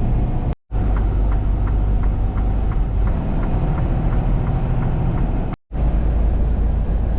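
Steady low rumble of a semi truck driving, heard inside the cab, with a light regular ticking about three times a second through the middle. The sound cuts out briefly twice.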